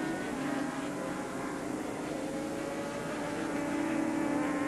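Superbike engines, a Kawasaki and a Honda, running at high revs as two racing motorcycles go through a corner, a steady buzzing engine note that shifts in pitch a little as they go.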